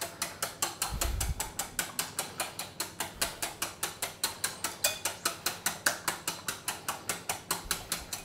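Two eggs being beaten with a wire whisk in a bowl: the whisk strikes the bowl in a fast, even run of clicks, about six a second.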